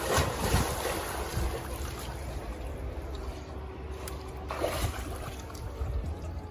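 Pool water splashing and sloshing as a swimmer pushes off and swims a length underwater, louder at the start and again about four and a half seconds in, with wind rumbling on the microphone.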